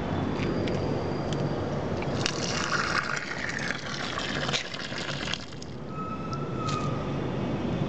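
Water pouring and splashing into a container, starting about two seconds in and stopping about three and a half seconds later, over a steady low rumble.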